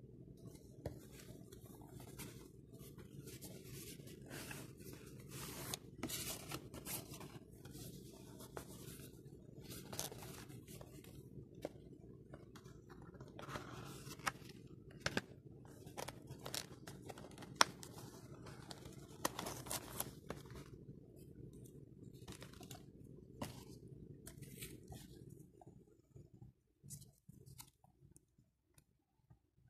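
Cardboard phone box being opened: seal stickers tearing, the lid scraping off and packaging crinkling, a busy run of scraping and crackling with sharp clicks over a steady low hum, thinning out near the end.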